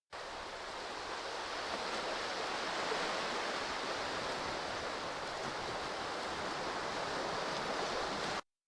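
Steady rushing-water sound effect, growing slightly louder over the first couple of seconds and cutting off abruptly near the end.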